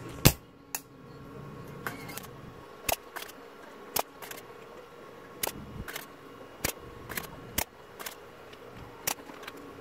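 Spring-loaded desoldering pump being cocked and fired on the joints of a TV power-supply board to suck away solder: about a dozen sharp clicks at uneven intervals, the first about a quarter second in by far the loudest.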